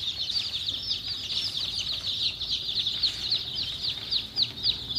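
A crowd of two-day-old Pancamurti kampung chicks peeping nonstop, many short, high, falling peeps overlapping several times a second.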